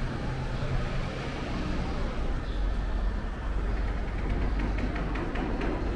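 Steady low rumble of vehicle traffic with outdoor background noise, and a run of light clicks near the end.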